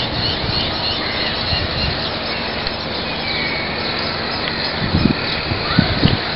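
Steady outdoor background rush, like distant traffic and wind on the microphone, with a few faint bird chirps and some low thumps near the end.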